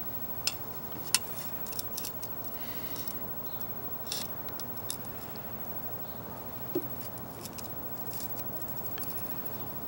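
Scattered small metallic clicks and taps as a steel combination square's protractor head and rule are handled against a plane iron held in a sharpening jig, over a low steady hiss.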